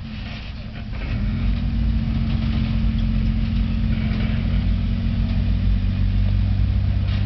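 Toyota Land Cruiser FZJ80's 4.5-litre inline-six running steadily at low revs as the truck crawls over rock, the engine getting louder about a second in and then holding an even note.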